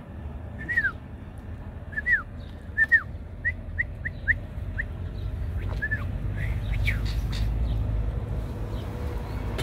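Kangal puppy whimpering: a run of about a dozen short, high-pitched squeaks over the first six seconds, each rising and then dropping in pitch. After that comes a low rumble of the phone being handled.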